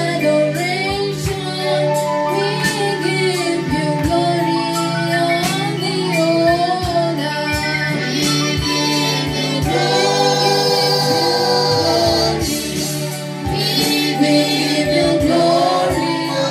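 Gospel worship team singing into microphones, female voices in front, over instrumental backing with a steady beat.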